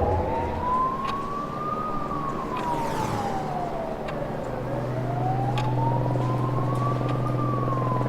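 Emergency vehicle siren in a slow wail, rising for about two seconds, falling, then beginning a second rise about halfway through. A steady low hum comes in under it at the same point.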